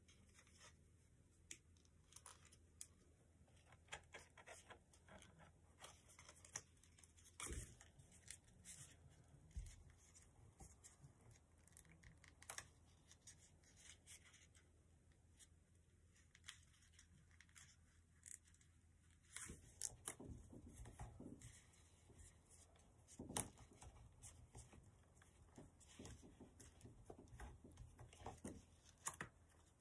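Sheet of paper being creased and handled by hand as a folded paper model: faint, scattered rustling and crinkling, with a few sharper crackles as folds are pressed.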